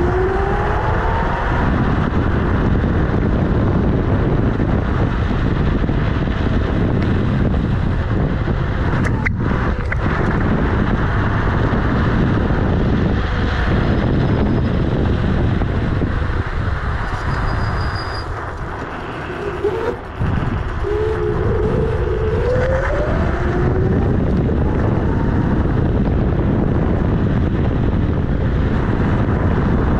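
Kugoo G-Booster electric scooter riding on a tarmac street: a steady rumble of tyre on road, with the hub motor's whine rising in pitch as it speeds up, about a second in and again after a brief lull about two-thirds through.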